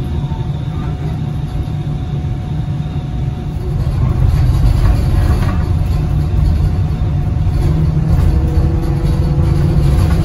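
Cabin ride noise of a Gillig electric trolleybus under way: a steady low rumble of road and running noise with faint whining tones from the Kiepe electric drive, getting louder about four seconds in.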